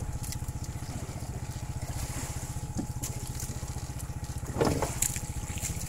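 A boat's engine running steadily with a fast, even low thud. A brief louder burst cuts in about four and a half seconds in.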